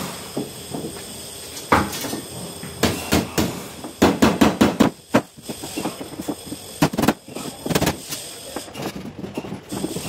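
Metal canoe ribs knocking and clanking against the aluminum hull of a Sportspal canoe as they are worked into place. The knocks are sharp and irregular, with a quick run of hits about halfway through and a few more strikes later.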